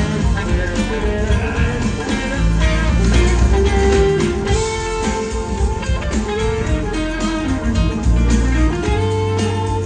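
A live rock band playing, heard from within the audience. A semi-hollow electric guitar carries held, sliding melody notes over drums, bass and congas.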